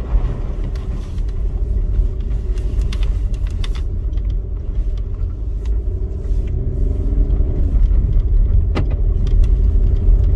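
Car climbing a steep, slippery dirt track, heard from inside the cabin: a steady engine under load over a heavy rumble of tyres on the rough surface, with a few short clicks and knocks, one sharp one near the end.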